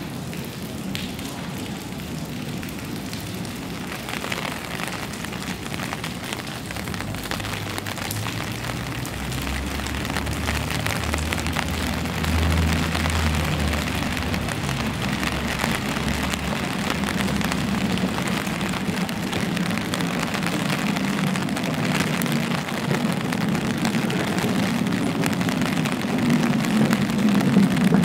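Steady rain falling on an umbrella and wet paving, a continuous hiss of fine drop patter. A low rumble swells and fades in the middle, and another low hum builds near the end.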